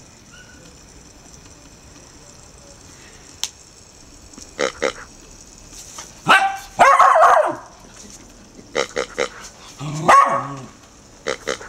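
Irish Terrier puppy barking at a rubber toy pig: after a quiet few seconds, a string of short, loud barks in the second half, the longest burst about six seconds in.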